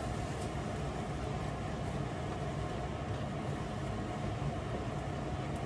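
Steady hum of a kitchen range hood fan running over the stove, with a few faint knocks of a wooden spoon stirring a thick stew in a pot.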